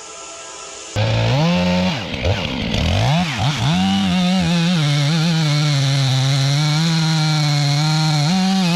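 Gasoline chainsaw cutting into wood, cutting in suddenly about a second in. Its engine pitch dips and recovers a few times as the chain bites, then it runs fairly steady under load.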